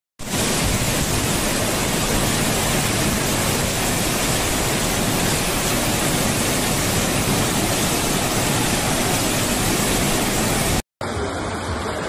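Violent storm: strong gusting wind and heavy rain, a loud, dense, steady rushing noise with rumbling wind buffeting on the microphone. It cuts off abruptly near the end.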